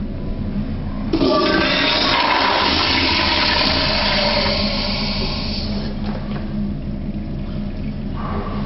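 Kohler Highcrest flushometer toilet flushing: a sudden rush of water starts about a second in, runs loud for about five seconds, then eases off to a quieter flow.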